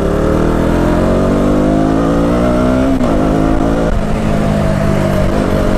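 KTM Duke 200's single-cylinder engine pulling the bike along under acceleration. Its pitch rises for about three seconds, drops suddenly at a gear change, then holds steady.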